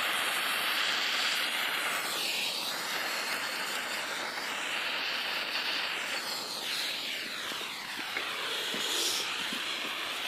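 Weco firework igniter stick burning with a steady rushing hiss that shifts in tone now and then.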